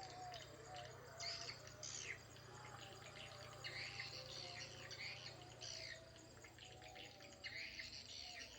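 Swiftlets twittering: repeated short chirps that fall in pitch, coming every second or so, over a steady low hum.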